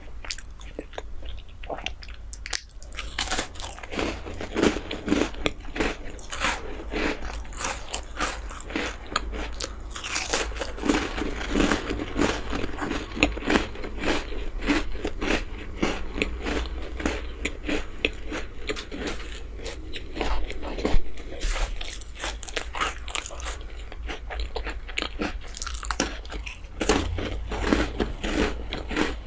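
Close-miked crunching and chewing of a crisp chocolate biscuit: rapid, dense crunches that start about two and a half seconds in and keep going as it is chewed.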